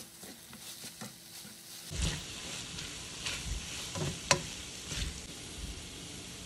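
Diced beef and onion sofrito frying in a pan with a steady sizzle while being stirred, a spoon scraping the pan in a few strokes. The sound gets louder about two seconds in, and there is a single sharp knock of the utensil against the pan a little after four seconds.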